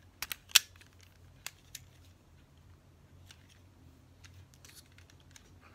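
Hard plastic clicks from handling a DX Wonder Ride Book toy: a quick cluster of sharp clicks in the first second, the loudest about half a second in, then two lighter clicks around a second and a half in, and faint handling ticks after.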